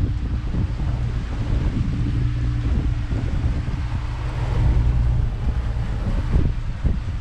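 Twin Yamaha outboard engines of a center console boat running with a steady low hum, with wind noise on the microphone over it.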